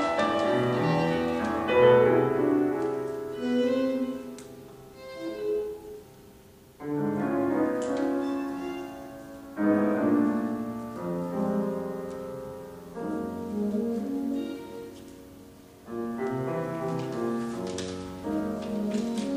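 Chamber music for violin, saxophone and piano played live. Loud chords come in suddenly about a third of the way in, again about halfway, and again near the end, each fading away under held notes.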